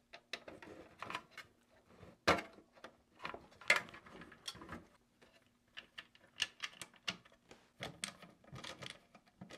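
Irregular clicks, taps and knocks of a Noctua case fan being fitted into the NAS's metal fan bracket and a screwdriver set to its screws, with two sharper knocks a few seconds in.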